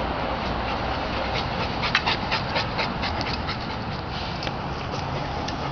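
A dog panting, with a quick run of short sharp clicks about a second and a half in and a few more scattered near the end.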